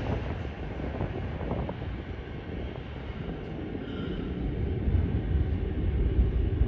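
R188 subway train on the 7 line pulling away into the tunnel: a steady low rumble of wheels on rail that eases over the first few seconds, with a faint brief squeal about four seconds in. The rumble grows louder again near the end.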